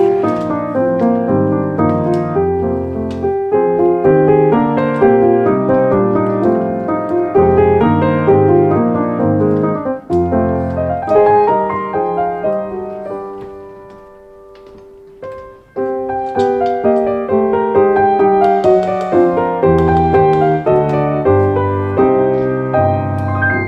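Background piano music, a steady run of gentle notes. A little past the middle it thins out to a quiet held note, then the playing picks up again.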